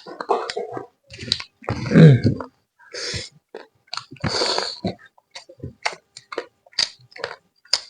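Close-miked eating sounds from chicken curry and rice: chewing, slurping and lip smacks in short separate bouts, with a louder low throaty sound about two seconds in.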